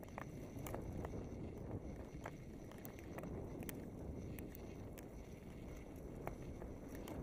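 Mountain bike rolling along a dirt singletrack: a steady low rumble of tyres on dirt and air rushing past, with scattered sharp clicks and rattles from the bike over the rough ground.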